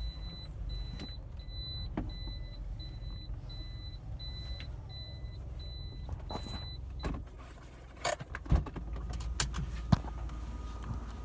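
A vehicle engine runs with a steady low rumble, under a high electronic beep that repeats about twice a second and stops about seven seconds in. A few sharp knocks and clicks follow near the end.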